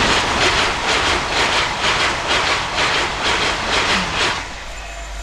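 LNER Azuma high-speed electric train passing at speed. The rush of wheels and air carries a fast, even beat of about four pulses a second from the passing wheelsets, and it dies away near the end.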